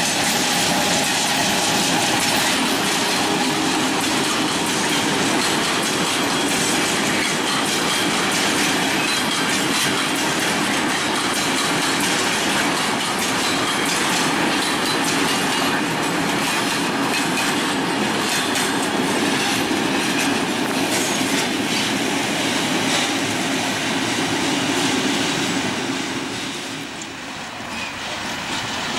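Freight train rolling past: a class 742 diesel locomotive followed by a long string of open freight wagons, their wheels running steadily over the rails. The noise dips briefly near the end.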